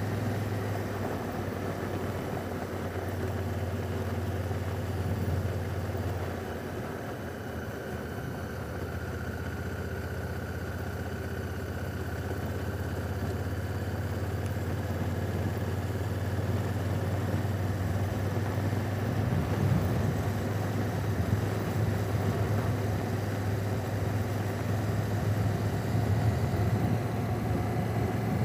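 2017 Honda Africa Twin's parallel-twin engine running steadily, a low even drone that eases slightly about six seconds in and grows a little louder toward the end.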